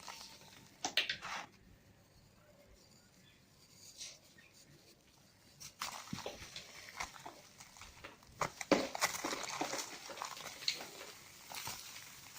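Dry cement balls and cubes crumbling and crunching in crackly bursts, briefly about a second in, then more or less continuously from about six seconds on.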